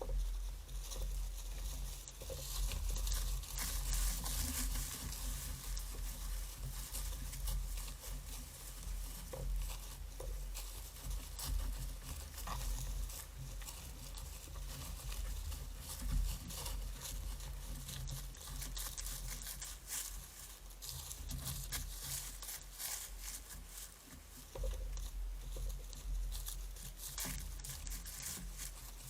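Irregular rustling and crackling patter, many small dry clicks close together, over a steady low hum.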